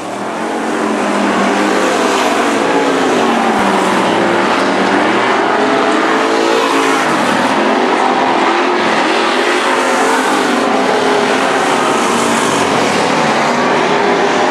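Stock cars running hot laps on a dirt oval: several engines blend into a continuous loud drone, their pitch rising and falling as the cars pass. It fades in during the first second.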